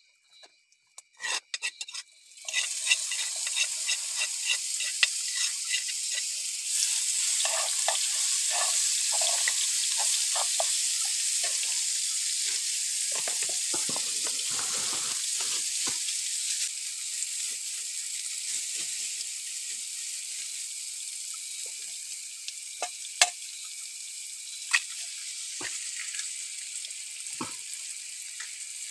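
Food sizzling and crackling in hot oil in a pan. It starts suddenly a couple of seconds in as the food goes in, then slowly quietens, with a few sharp clicks near the end.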